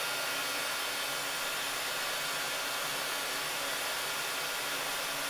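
Hot air gun blowing steadily, a rush of air with a faint motor whine, heating a low-temperature solder splice on a wire joint until the solder melts.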